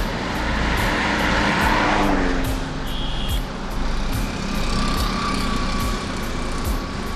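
Expressway traffic passing: a minibus goes by close, its tyre and engine noise swelling about a second or two in and dropping in pitch as it passes, with motorcycles and other light vehicles running behind. A short high beep sounds about three seconds in.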